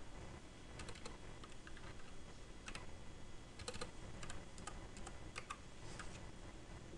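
Computer keyboard being typed on: faint, scattered key clicks, some single and some in quick clusters of two or three.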